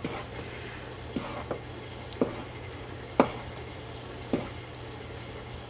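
A spoon stirring thick barbecue sauce in a large pan, with about five short knocks of the spoon against the pan at irregular intervals, over a steady low hum.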